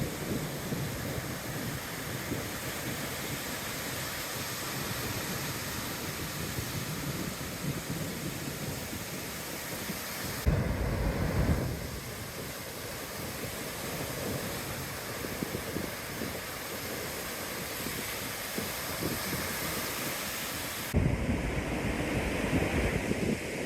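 Ocean surf washing in steadily. Wind buffets the phone's microphone in low rumbling gusts about ten seconds in and again near the end.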